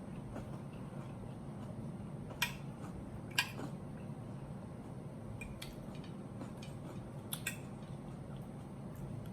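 A fork and knife click against a plate several times during a meal, the sharpest strikes about two and a half and three and a half seconds in and a quick pair near the end, over a steady low hum.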